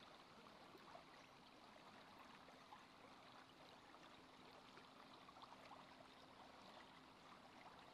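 Near silence: a faint, steady hiss of background ambience with many tiny scattered ticks and a faint low hum.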